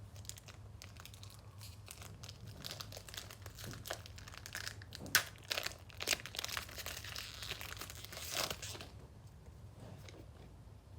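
Foil trading-card booster pack wrapper crinkling and being torn open: a run of crackles and sharp rips that stops about nine seconds in.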